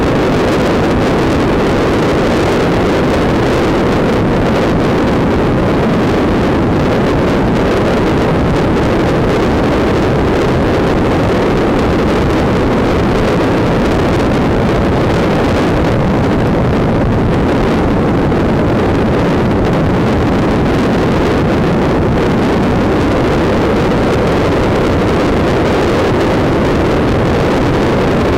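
Steady wind rush over the microphone, with the drone of a Honda CBR sport bike's engine underneath, while riding at a steady speed.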